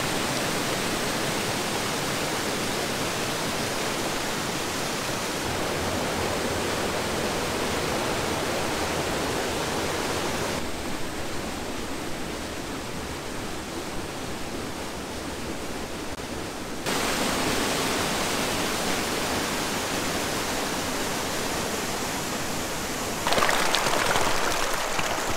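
Rushing water of a creek running high, pouring over small cascades and rock ledges: a steady rush that shifts abruptly in level a few times and is loudest near the end.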